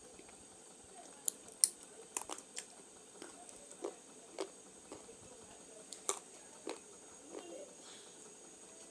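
Crisp cracks and crunches of someone biting and chewing hard, dry clay chunks: about a dozen sharp, irregular crunches, the loudest about a second and a half in.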